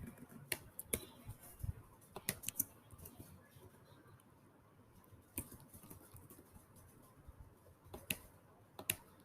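Clicks from a Chromebook's keys and touchpad as the Linux setup is filled in: about eight sharp, separate clicks spread out with pauses, some in quick pairs.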